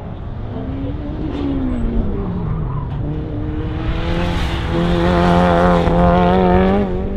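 Autocross race car's engine pushed hard through a cone course: revs rise and drop in the first few seconds, then hold high and steady, loudest as the car comes close near the end, with tyres squealing through the turns.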